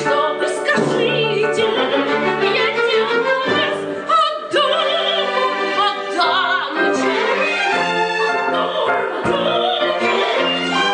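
A singer with vibrato performing with a live orchestra, in an operatic style.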